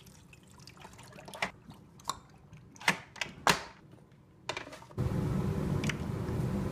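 Water poured from a mug into the reservoir of a Keurig single-serve coffee maker, with several sharp clicks and knocks of the lid and mug being handled. About five seconds in, a steady low hum starts up.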